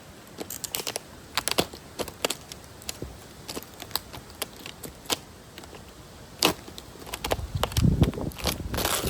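Dunlop Thermo boot crushing toy cars underfoot: a run of sharp cracks and snaps as the toys break, with a louder low crunch near the end.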